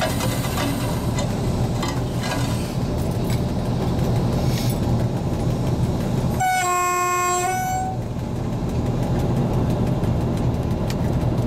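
SU45 diesel locomotive running steadily, heard from inside its cab, with wheels clattering over the rail joints. About six seconds in, the horn gives one blast of about a second and a half, a warning before an unguarded level crossing.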